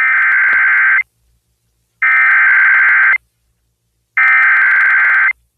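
Emergency Alert System SAME header tones heard over FM radio: three loud bursts of high-pitched digital data warble, each about a second long and a second apart. They are the coded header that opens a new severe thunderstorm warning.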